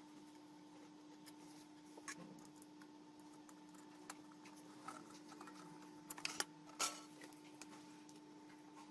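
Faint steady hum with scattered light clicks and taps, the sharpest few about two-thirds of the way through.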